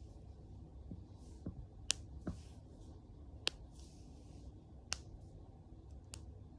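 Knuckles cracking: four sharp pops about a second and a half apart, with a couple of fainter clicks and soft hissing between them.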